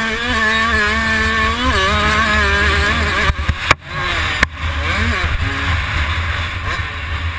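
65cc two-stroke motocross bike engine running hard, its pitch rising and falling as the rider works the throttle, with low wind rumble on the bike-mounted microphone. About halfway the engine note breaks off briefly around two sharp knocks, then picks up again with rising revs.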